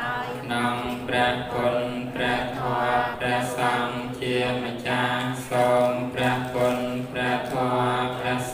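Buddhist monk chanting in a steady, sing-song recitation, one low voice held on nearly the same pitch with no pauses.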